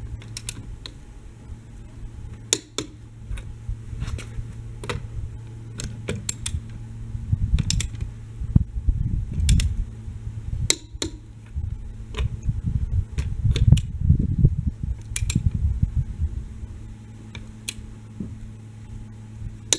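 Irregular clicks and clinks of lug nuts and a wrench being worked while a wheel is refitted, over a steady low hum, with bursts of low rumble in the middle.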